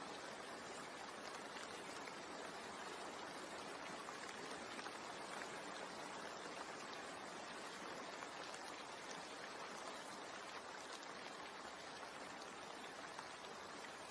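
Steady rain: an even hiss of falling rain with faint scattered drop ticks.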